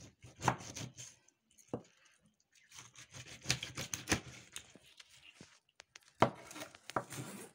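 Kitchen knife sawing through the neck of a whole sea bass to take the head off: irregular scraping, cutting strokes with a few sharp cracks as the blade goes through the bone.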